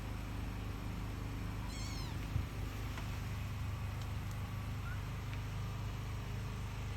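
A cat gives one short, high meow that falls in pitch, about two seconds in, over a steady low hum.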